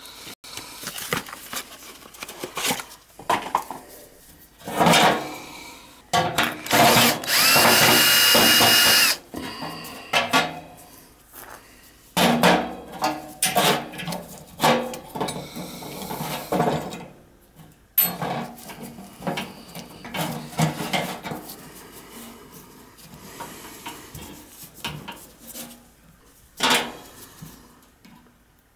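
Cordless drill/driver runs for about two seconds, its whine rising as it spins up, about seven seconds in. Knocks and clatter of tools and metal parts being handled come and go throughout.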